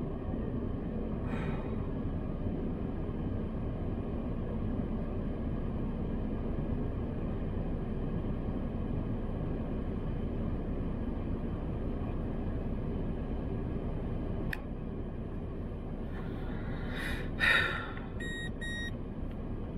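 Steady low rumble inside a car's cabin, with a click about fourteen seconds in after which it is slightly quieter. Near the end comes a brief rustle, then two short electronic beeps.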